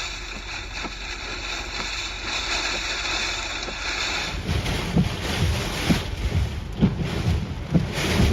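Storm wind blowing in through the open car windows and buffeting the microphone, turning to heavy low gusts about four seconds in and growing louder toward the end. The driver takes it for a tornado or a strong gust front passing over.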